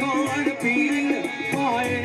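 Live South Asian folk music: a harmonium's held chords under an ornamented sung melody, with hand percussion keeping a steady beat of a few strokes a second.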